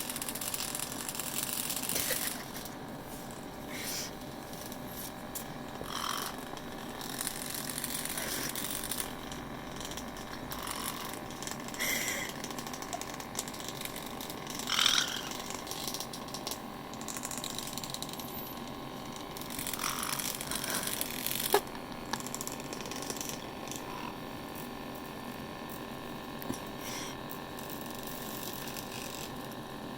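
Electric massage machine running with a steady mechanical hum, with several short sharp sounds on top, the loudest about fifteen and twenty-one seconds in.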